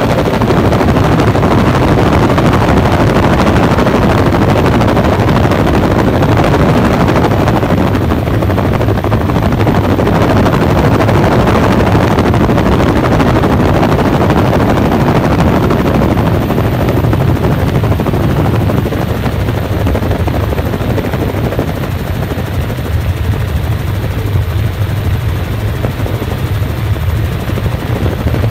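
Tour helicopter in flight heard from aboard: a loud, steady drone of engine and rotor with a fast rotor beat underneath, easing a little in level about two-thirds of the way through.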